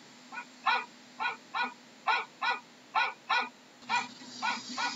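Dog barking repeatedly in short sharp barks, many of them in quick pairs, about two barks a second.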